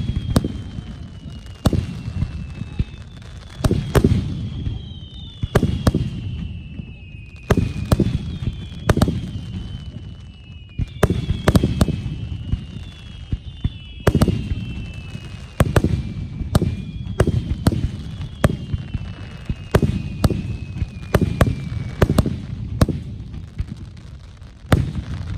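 Aerial fireworks display: shells bursting in quick succession with sharp bangs and low rumbling tails. Overlapping high whistles slide slowly down in pitch between the bursts.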